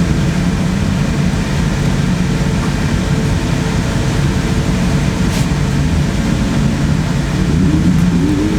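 Dirt bike engines running on a motocross track, one revving up with a rising pitch near the end.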